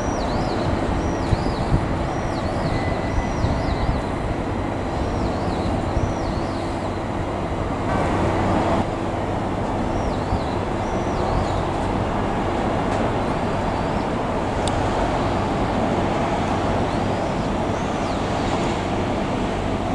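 Small diesel shunting switcher running with a steady rumble as it slowly moves a railcar along the yard track. A louder, noisier stretch comes about eight seconds in, and repeated high chirps sound above the rumble.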